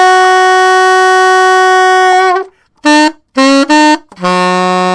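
Solo alto saxophone playing a minor blues call-and-response riff. The call ends on a long held E flat. After a short gap the response answers with three short notes and then a long held low E flat, an octave below.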